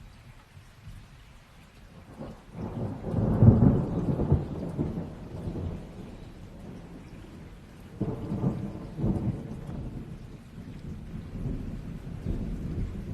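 Rain falling steadily with rolling thunder: a loud, low rumble builds about two seconds in and peaks soon after, then a second rumble comes about eight seconds in, and a lower rumble near the end.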